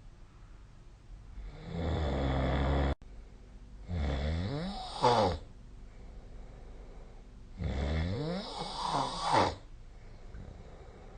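A sleeping person snoring: three snores, each a second or two long. The first breaks off abruptly about three seconds in.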